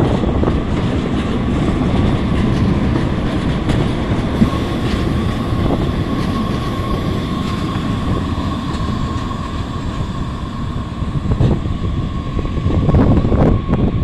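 Two-car Siemens S200 light rail train running past on street track, with a steady high whine through the middle of the pass.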